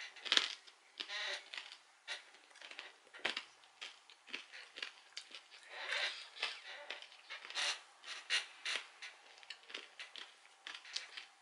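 Crunching of a hard puffed snack being chewed close to the microphone: many short, irregular crackles.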